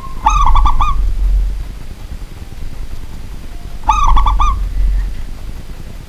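Zebra dove (perkutut) singing its cooing song twice, each a quick phrase of about four ringing notes, the second phrase about three and a half seconds after the first.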